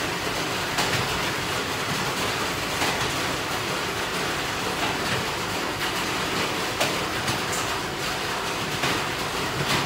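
Steady hiss of loud rain, with a few faint ticks and knocks.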